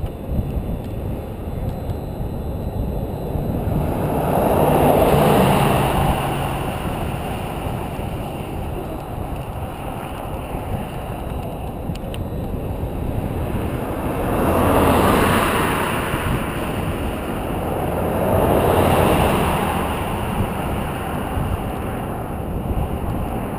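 Cars passing on the road alongside, three in all: one swells and fades about five seconds in, two more close together past the middle. Under them, a steady rumble of wind on the microphone from riding.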